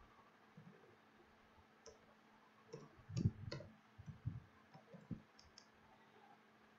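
Scattered light clicks of a computer keyboard and mouse, about a dozen, loudest in a quick cluster around the middle, some with a dull thump beneath.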